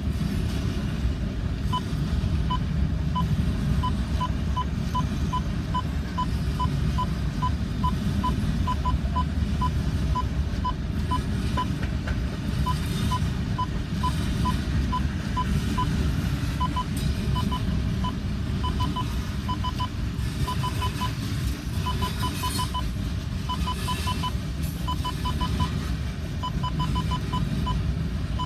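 CN freight train M347 rolling past with a steady low rumble. Over it an electronic grade-crossing bell dings about twice a second, its strokes falling into uneven clusters of two to four in the second half.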